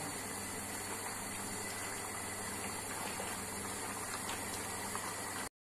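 Steady noise of chicken and tomato sauce bubbling in a steel karahi over a gas flame turned up high to cook off the water, with a low hum underneath. The sound cuts out briefly near the end.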